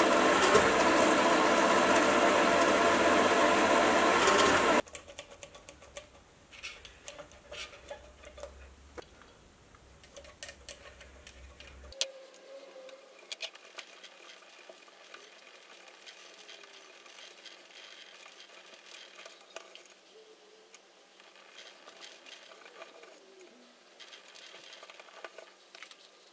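Milling machine spindle drilling a hole in mild steel with a twist drill: a loud, steady running sound that stops abruptly about five seconds in. After it come faint small clicks and scrapes of the hole being threaded by hand with a tap and tap wrench.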